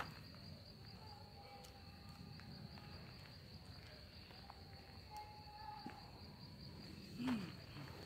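Quiet woodland ambience with a steady high-pitched insect drone, typical of crickets, and faint short calls. A brief low sound with a falling pitch comes near the end.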